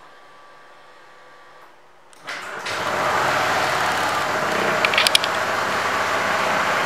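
A QJ Motor LTR 150 scooter's 150 cc engine starting about two seconds in, catching quickly and then idling steadily. A few brief clicks sound over the idle about five seconds in.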